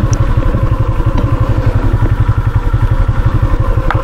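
Motorcycle being ridden along, its engine running with a rapid, even low throbbing. A light click near the end.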